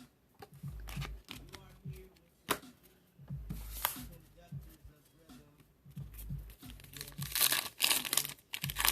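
Trading-card foil pack wrapper being handled, then torn open and crinkled. There are light clicks and taps at first, then loud bursts of tearing and crinkling from about seven seconds in.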